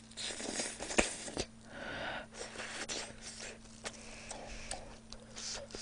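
Close-miked chewing and mouth smacking on a bite of spicy sauced pork rib, with sharp puffs of breath out through the mouth against a hot mouthful. A faint steady hum runs underneath.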